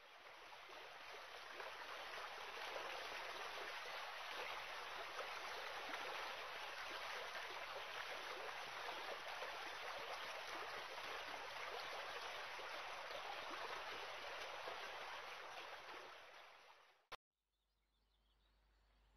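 Steady rain falling, an even hiss that fades in at the start and fades away near the end. A single sharp click cuts it off.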